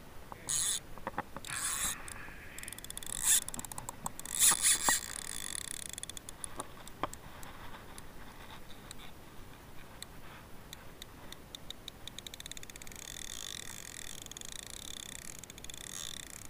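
Jigging reel on a fishing rod being handled: a run of small irregular clicks, with several short loud scraping rustles in the first five seconds and a faint steady hiss from about twelve seconds in.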